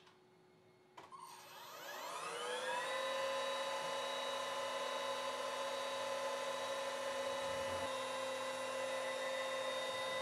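CNC router spindle spinning up from a stop about a second in: a rising whine that levels off after about two seconds into a steady high whine with several clear overtones.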